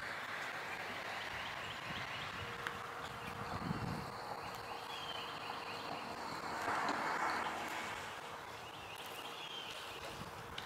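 Outdoor lakeside ambience: faint short bird chirps come and go over a steady background hiss, with a faint steady hum and a brief swell of noise about seven seconds in.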